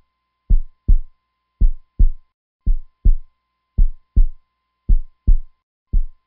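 Heartbeat sound effect: deep double thumps (lub-dub), about one beat a second, steady throughout, over a very faint steady high tone.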